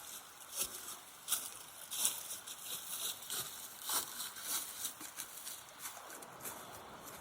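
Broom sweeping with short, brisk swishing strokes, about two a second. A steady hiss rises near the end.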